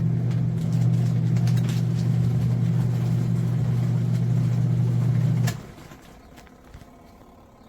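Twin-tub portable washing machine's wash motor running with a steady low hum, then cutting out about five and a half seconds in as the agitation cycle pauses.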